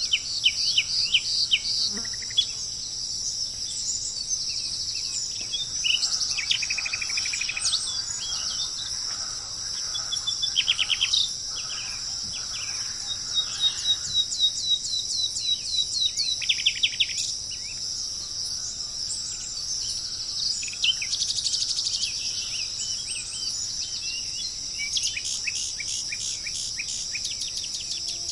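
Songbirds singing repeated rapid trills and chirp series over a steady, high-pitched drone of insects.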